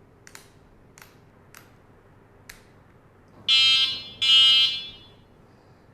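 A few light clicks from the e-bike's handlebar switches, then two short blasts of the e-bike's electric horn, a buzzy tone, a little past halfway through.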